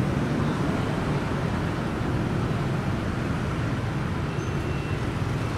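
Steady street traffic: a continuous low rumble of motorbike, scooter and car engines passing on a busy road.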